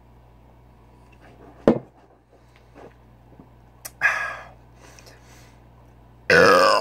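A man catching his breath after chugging a bottle of malt liquor. There is a sharp knock about two seconds in and a harsh gasp about four seconds in, then a loud, throaty vocal sound with a falling pitch near the end.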